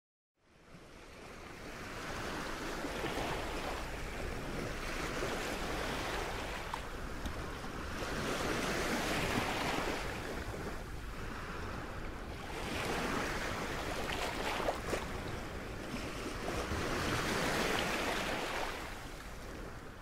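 Rushing wind and water noise that swells and eases every four to five seconds, with no engine standing out.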